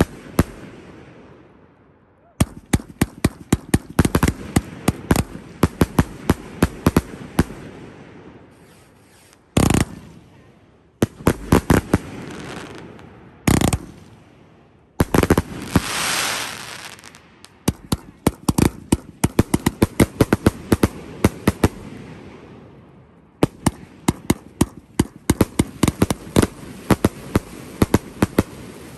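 Aerial fireworks going off in waves: rapid strings of sharp bangs and crackling, with a few heavier single reports. The waves are broken by brief lulls.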